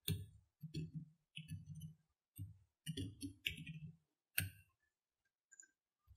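Computer keyboard typing, runs of faint keystroke clicks, with a sharper single key click about four seconds in and then a pause of about a second and a half.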